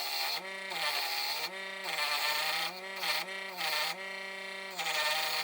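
Small benchtop wood lathe motor running, its pitch sagging each time the cutting tool bites into the spinning wooden dowel, with a hiss of the cut; the tool is put to the wood and lifted off several times.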